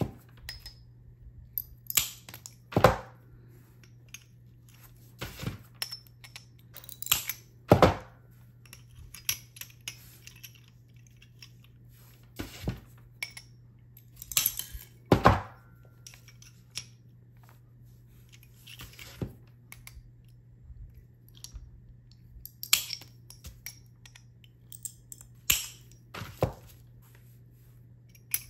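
Irregular clicks and clinks of cut glass pieces being handled and set down on a work table, over a faint steady hum.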